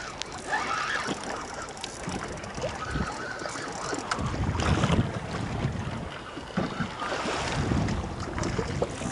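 Wind buffeting the microphone in uneven gusts, over choppy sea water washing against a small boat's hull.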